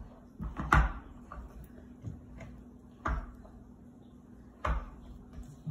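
A large plastic storage bin full of dry dog food being pushed across a hardwood floor, giving a few sharp knocks and bumps; the loudest comes just under a second in, with others about three and four and a half seconds in.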